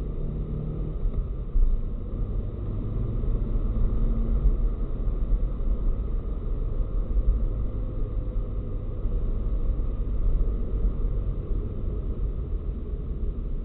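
Steady low road and engine rumble inside a moving car, picked up by a dashcam's built-in microphone, with one short thump about a second and a half in.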